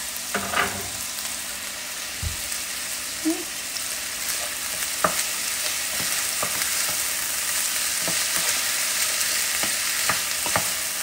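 Chicken pieces frying and browning in a pan, a steady sizzle, with a few light knocks scattered through it.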